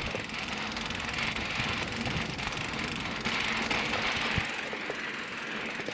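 Schwinn Axum mountain bike coasting along a dirt trail, not pedalled: a steady rush of tyre noise over the ground and wind, with a few faint ticks and knocks.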